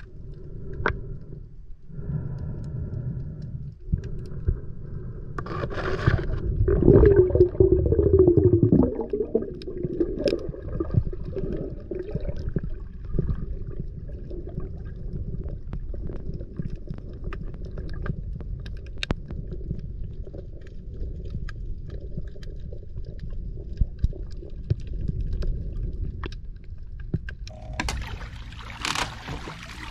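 Underwater sound picked up by an action camera: a muffled low rumble of moving water with scattered small clicks, growing louder for a few seconds about seven seconds in. Near the end the camera breaks the surface into splashing water.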